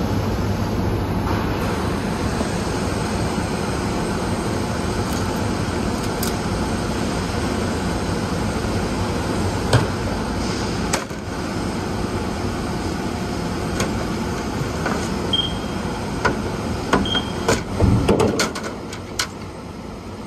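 Warehouse conveyor machinery running with a steady mechanical din, with scattered knocks of packages. Two short high beeps come a couple of seconds apart, then a burst of louder clatter and knocks near the end as a plastic tote and a cardboard box are handled.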